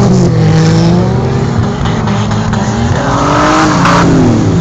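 Demolition-derby car engines revving, their pitch rising and falling as the drivers accelerate and back off. About three seconds in there is a second of hissing noise that cuts off sharply near four seconds.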